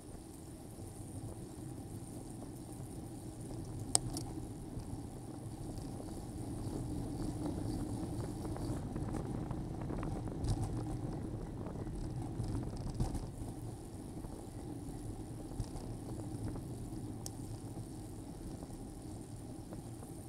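Wind and road rumble picked up by a bicycle-mounted camera's microphone while riding, with a sharp click about four seconds in and a few fainter rattles later.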